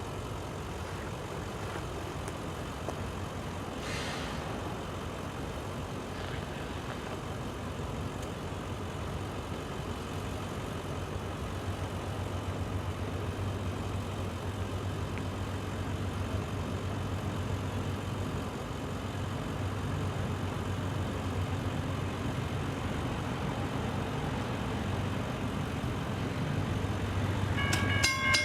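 Diesel locomotives of an approaching CSX train running with a low, steady rumble that slowly grows louder. About a second before the end, the locomotive's multi-tone horn starts sounding.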